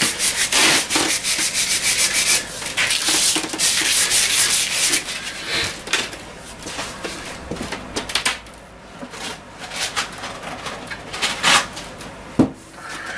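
Sandpaper rubbed by hand up and down a wooden snooker cue shaft in quick strokes, cutting through years of built-up oil finish. The sanding stops about five seconds in, giving way to faint handling noises and a sharp knock near the end.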